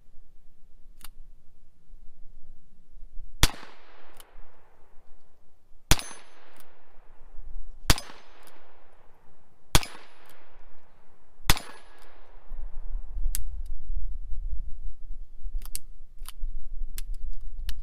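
Stainless single-action revolver fired five times, about two seconds apart, each shot followed by a fading echo, with faint clicks between shots. A low rumble comes in after the last shot.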